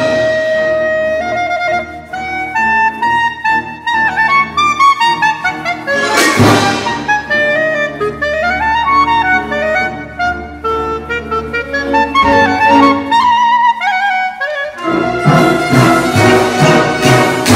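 Solo clarinet playing quick, jumping phrases over a symphony orchestra. Loud percussion strikes hit at the very start and again about six seconds in, and the full orchestra with percussion swells in near the end.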